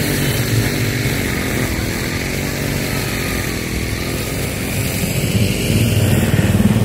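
A small vehicle engine running steadily, growing somewhat louder near the end.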